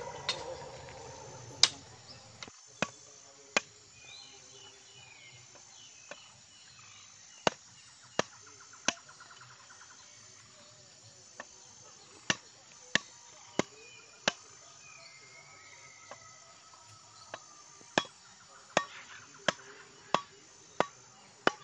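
A curved machete blade chopping and trimming thin bamboo poles: sharp, separate knocks at irregular intervals, coming in runs of about one to two a second, with pauses between runs. Faint bird chirps are heard between the strokes.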